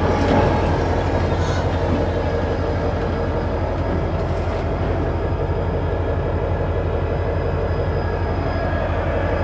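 CSX road slug and GP40-2 locomotives rolling slowly past at close range: a steady heavy diesel rumble with the wheels rolling on the rail, and a faint high whine from about halfway through.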